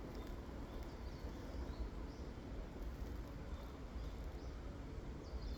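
Quiet outdoor ambience: a steady low rumble with faint, brief bird chirps now and then.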